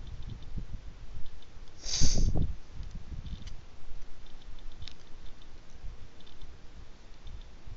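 Wind buffeting an outdoor microphone in low, irregular thumps, with a louder rushing gust about two seconds in. Faint, short high ticks or chirps come here and there.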